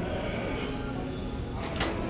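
Cable machine clacking once near the end as a cable glute kickback rep swings back, over background music.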